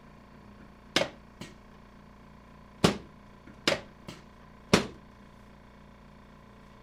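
Drop section of a chiropractic adjusting table released by thrusts: four loud sharp clacks, two of them followed by a fainter click.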